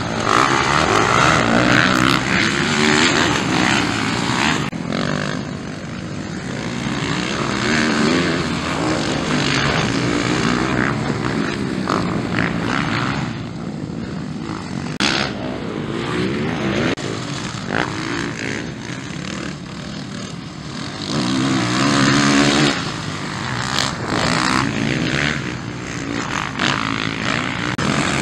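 Motocross bike engines revving hard and easing off as riders race past, the pitch rising and falling again and again, with a few sudden jumps in the sound.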